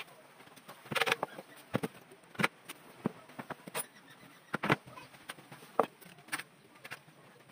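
Aluminum window-frame profiles clacking and knocking against each other and the wooden bench as the frame is shifted into place, an irregular run of short, sharp knocks.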